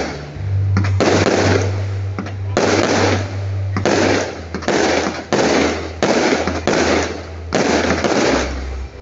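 Aerial firework shells bursting in quick succession, about one loud bang a second, each trailing off briefly before the next.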